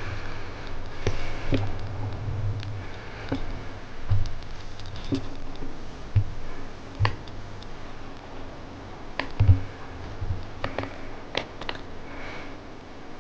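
Scattered small clicks and taps close to the microphone, a few of them sharper and louder (about four seconds in, seven seconds in and nine and a half seconds in), over an uneven low rumble.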